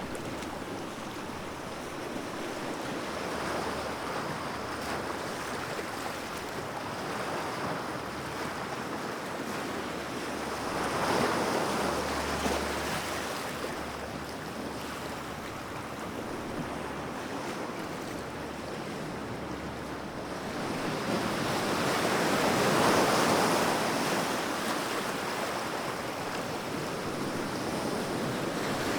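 Sea waves: a steady rush of surf that swells louder twice, once about a third of the way in and again for a few seconds past the two-thirds mark.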